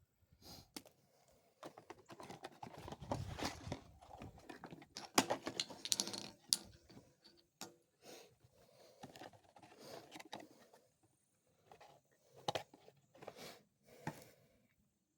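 Small irregular clicks, rattles and rustling from handling shotgun shells and the Mossberg 500 12-gauge pump shotgun, with no shot fired.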